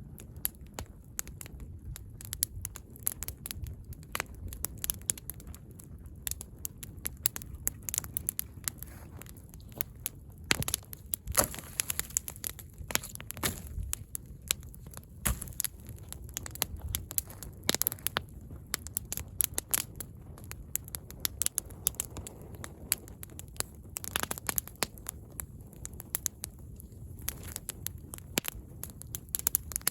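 Irregular crackling and crunching, many sharp pops at uneven intervals over a low rumble.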